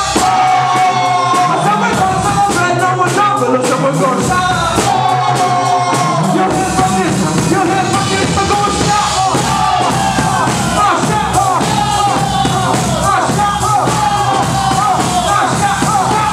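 Live band music with no vocals. For the first six seconds or so the bass and drums drop out, leaving a melodic line over the band; then the full band comes back in with a steady beat.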